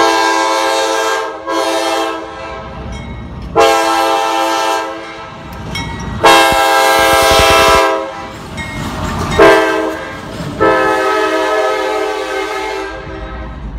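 A GE AC44CW diesel locomotive, running light, sounding its multi-note air horn for a grade crossing as it passes close by. It gives a series of long blasts with two short ones between them, and the last blast is the longest.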